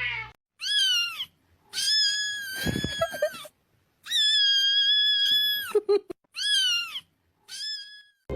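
A cat meowing: five high-pitched calls, two of them long and drawn out.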